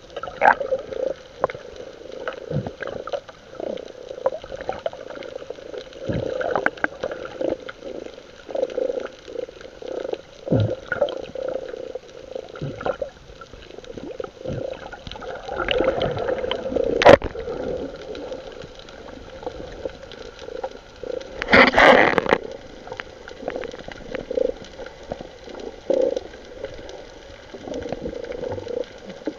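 Water gurgling and splashing over a steady low hum, with scattered knocks and a louder splashing burst about 22 seconds in.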